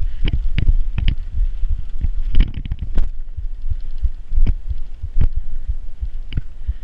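Bicycle riding over rough dirt: wind buffets the microphone in a heavy low rumble, and the bike rattles and knocks about twice a second, with a cluster of sharper rattles about two and a half seconds in.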